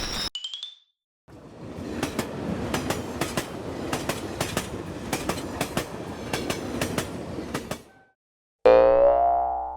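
Train passing for about six seconds, its wheels clacking over rail joints in a steady repeating rhythm over a rushing rumble, then cutting off. Near the end, a loud cartoon twang with a ringing pitch that dies away over about two seconds.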